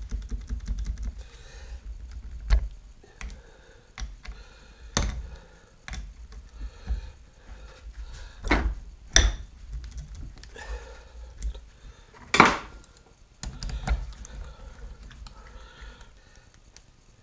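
A ratchet wrench clicks rapidly as bolts are turned in the face of a 10-inch 3-jaw scroll lathe chuck. Then come scattered metal clanks and clinks of steel tools and bolts handled and set down on the bench, the loudest about twelve seconds in.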